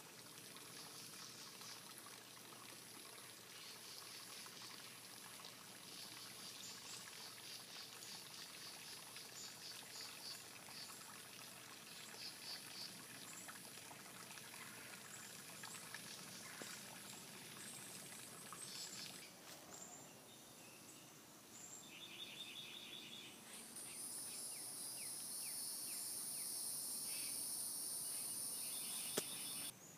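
Faint outdoor garden ambience of insects and birds: repeated high chirps for the first two-thirds, then a steady high-pitched insect buzz over the last few seconds that cuts off suddenly.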